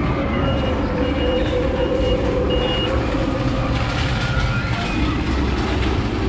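An electronic warning beeper sounds four short, high beeps in the first three seconds, over steady machinery noise with a low hum.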